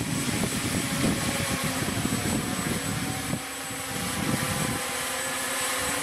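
Multirotor quadcopter with 2212 brushless motors and carbon-mix props buzzing in flight. A heavy low rumble drops away about three and a half seconds in, leaving a steadier hum.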